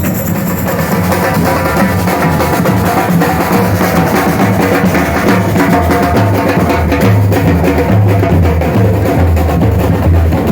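Loud drum-heavy music with a pulsing bass line that shifts between notes.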